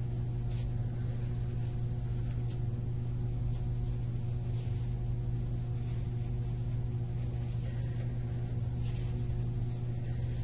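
Room tone: a steady low hum with evenly spaced overtones, and a few faint, brief rustles. No speech.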